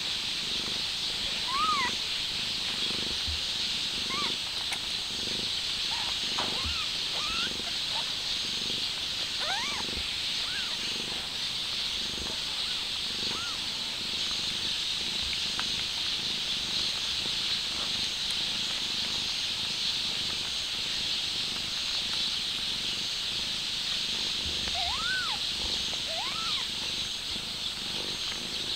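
Mother cat purring while newborn kittens nurse, with scattered short, high rising-and-falling squeaks from the kittens, over a steady high hiss.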